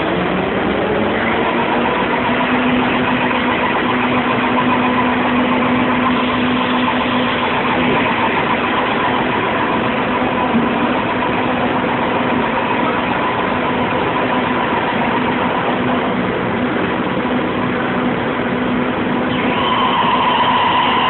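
Mazak CNC lathe running a threading program: a steady machine whine over an even hiss. Near the end the whine changes to a louder, higher set of tones.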